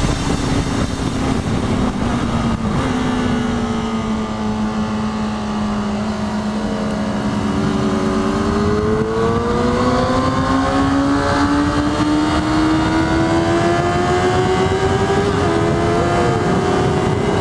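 Kawasaki ZX-6R's 599 cc inline-four running at speed through its stock exhaust. The engine note sags slightly for several seconds, then climbs steadily as the bike accelerates, with a brief blip near the end.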